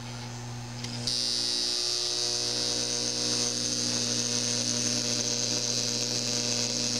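Homemade AC electromagnet coil fed through a Variac transformer, humming with mains current; about a second in, a louder high-pitched buzz joins and holds steady.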